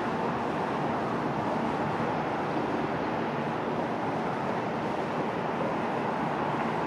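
Distant Cessna TU206F Turbo Stationair's turbocharged six-cylinder engine and propeller droning steadily as the plane climbs away just after takeoff.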